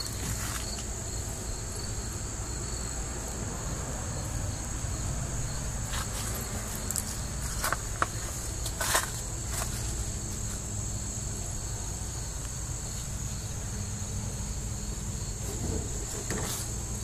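Carbureted engine of a Toyota 4Runner idling steadily, a low even hum. A steady high chirring of insects sits over it, with a few short knocks and clicks from handling.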